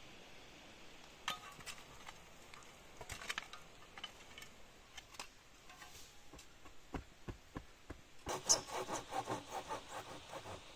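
Hand work on wood: scattered knocks and scrapes, then, about eight seconds in, a quick run of rubbing strokes, about five a second, lasting some two seconds.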